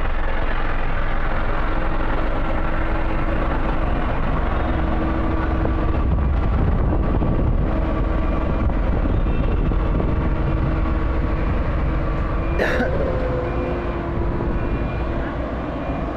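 Road roller engine running steadily and loudly while the machine is worked. About twelve and a half seconds in there is one brief sharp hiss or squeal.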